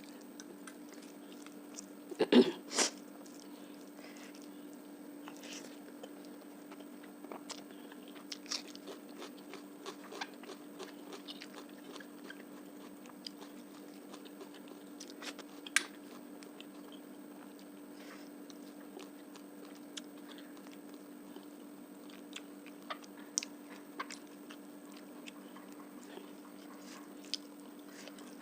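Close-up mouth sounds of a person eating fish curry, rice and onion: biting and chewing with scattered small clicks, and a loud cluster of crunches about two to three seconds in. A steady low hum runs underneath.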